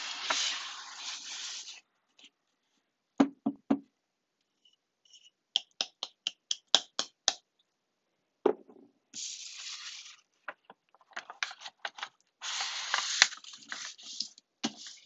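Small objects being handled: rustling, a few soft knocks, then a quick run of about eight clicks, followed by a thump and more rustling near the end.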